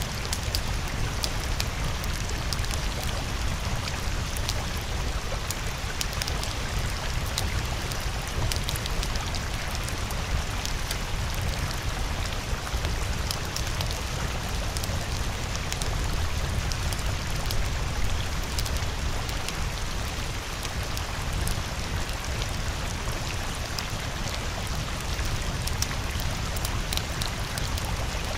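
Steady rain: an even hiss with a low rumble and scattered raindrop ticks.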